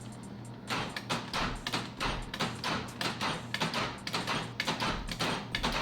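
Repeated sharp clicks of a 1999 Jeep Cherokee XJ's interior door lock being worked back and forth, about three to four a second, as the freshly straightened lock rod is tested.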